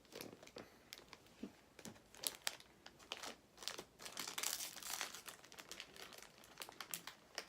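Crinkly plastic snack wrapper being handled, a run of irregular crackles and rustles, busiest midway.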